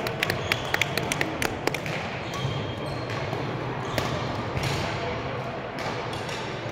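A quick, uneven run of sharp clicks through the first second and a half, and one more about four seconds in, over the steady hum of a large hall.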